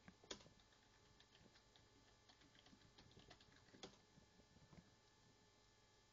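Faint clicking of a computer mouse and keyboard: a sharper click just after the start, a run of light key taps, another sharp click about four seconds in, then nothing.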